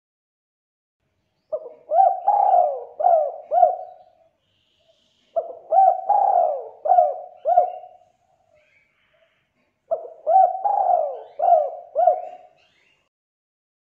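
Spotted dove cooing: three phrases, the first starting about a second and a half in, each a quick run of four or five short coos that bend in pitch, with pauses of about a second between the phrases.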